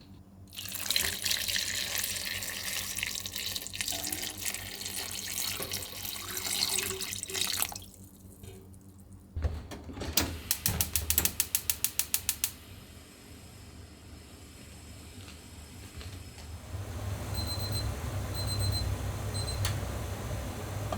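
Water running and splashing for about seven seconds, then after a short pause a quick run of about a dozen sharp clicks, and from about two-thirds of the way in a low steady rumble.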